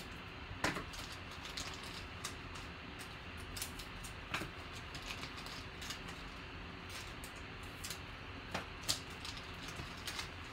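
Trading cards being handled and set down on a table: scattered light clicks and taps of card stock, a few sharper ones, over a steady low hum.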